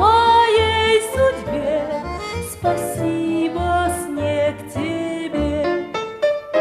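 Background music: a song with a singing voice over a pulsing bass.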